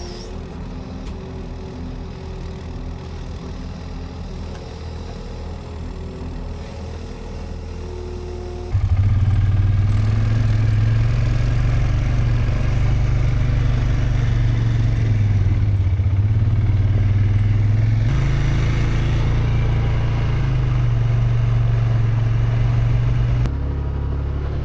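A vehicle engine running steadily, in several clips cut together. It jumps suddenly louder about nine seconds in and changes abruptly twice more near the end.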